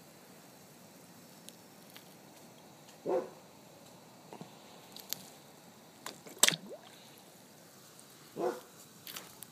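A dog barks twice, once about three seconds in and again near the end, over a quiet background with scattered light clicks. The loudest sound is a single sharp knock between the two barks.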